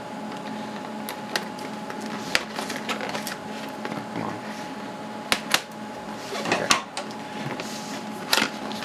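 Cardboard graphics-card box being opened and handled: scattered taps, scrapes and rustles of the flaps and inner box, with a few sharper clicks. A steady faint hum lies underneath.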